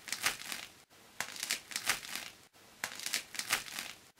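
Crisp crust of a freshly baked baguette crackling as a hand squeezes it, in three short bouts. The crackle shows how crispy the crust is.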